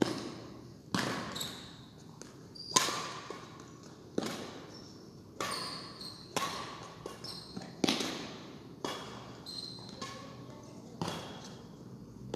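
Badminton rackets striking a shuttlecock back and forth in a rally, a sharp hit about every second, each echoing in the large hall.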